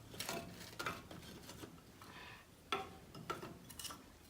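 Firewood and crumpled newspaper being handled in a fireplace while a fire is laid: a few scattered light knocks and clatters over faint rustling.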